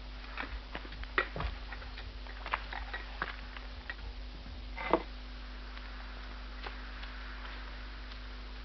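Irregular small clicks and taps, the sharpest about five seconds in, over the steady hum and hiss of an old film soundtrack. After that only the hum and hiss remain.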